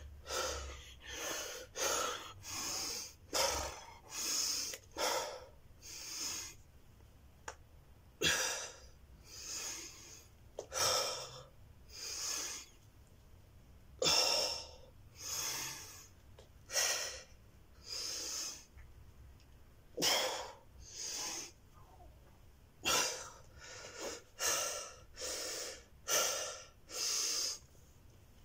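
A man breathing hard and fast while doing push-ups, in short, forceful, noisy breaths about one or two a second, with a few brief pauses. The breathing is heavy from the exertion of the set.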